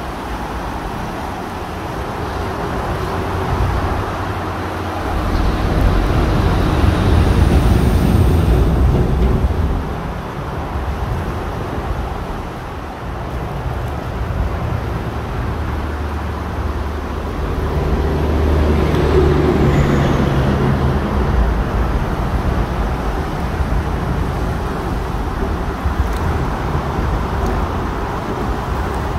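River water rushing steadily over shallow rapids, with road traffic on the bridges overhead as low rumbles that swell and fade twice, about six to ten seconds in and again about seventeen to twenty-two seconds in.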